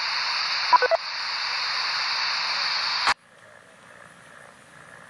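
Radio receiver static: a steady hiss with a few brief blips of tone a little under a second in. At about three seconds it stops with a click, and a much fainter hiss is left.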